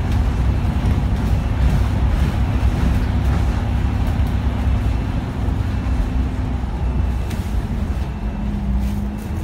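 Alexander Dennis Enviro500 MMC double-decker bus heard from inside the lower deck, its engine and drivetrain running steadily with a low rumble and a held hum. The hum drops in pitch and the sound eases a little near the end as the bus slows behind a stopped bus.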